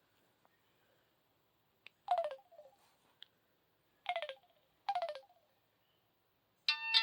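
Samsung cell phone button beeps: three short tones, each gliding down in pitch, spaced a couple of seconds then about a second apart. Just before the end a new ringtone starts playing from the phone's speaker.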